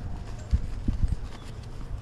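Four or five dull, low knocks in quick succession, from about half a second to just past one second in, over a steady low hum.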